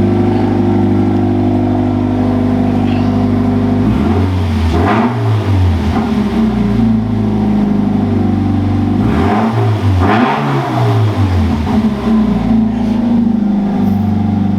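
Toyota 86's 2.0-litre flat-four engine idling loudly through an X-Force cat-back exhaust with the muffler and resonator deleted. It is revved twice, about four and about nine seconds in, each rev climbing and dropping back to idle.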